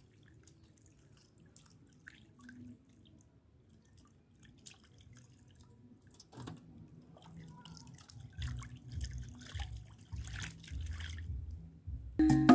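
Hands washing whole fish in a metal tin of water: splashing and dripping, faint at first and busier from about halfway through.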